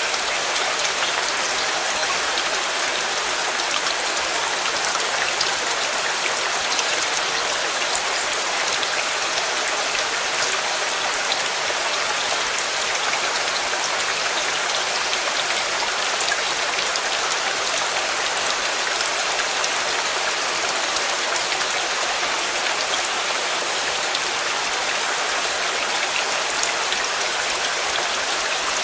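Steady rain, an even hiss of many drops falling on a surface, with small individual drop ticks throughout.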